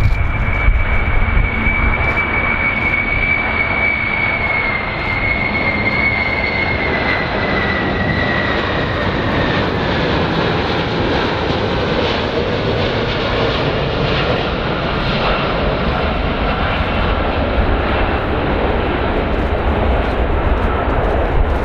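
Boeing VC-25A (747-200) on final approach with gear down, its four General Electric CF6 turbofans running as a steady jet roar. A high engine whine falls slowly in pitch through the first half as the aircraft draws near.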